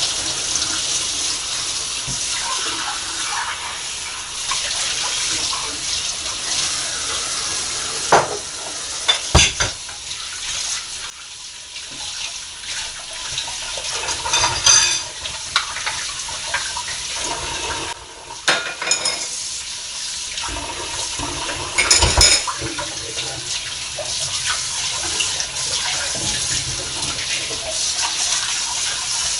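Kitchen tap running steadily into a sink while dishes are washed, with a few sharp clinks and knocks of dishes and cutlery against each other and the sink.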